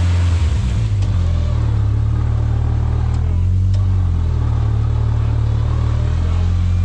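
Off-road vehicle engine running at crawling speed, its low note rising and falling a few times with the throttle, with a couple of light clicks near the middle.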